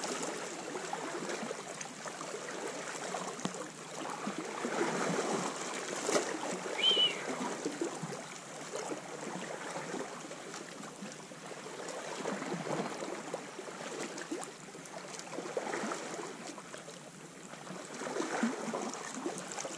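Sea water washing and trickling among shoreline rocks, swelling and easing in level, with one brief high chirp about seven seconds in.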